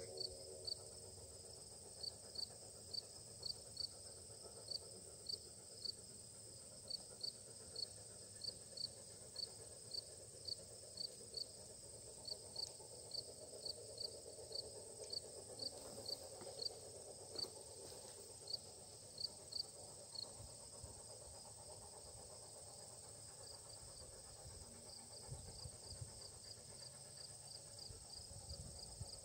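Faint insects: a steady high buzz with a short high chirp repeating about twice a second, which stops about two-thirds of the way through and returns faintly near the end.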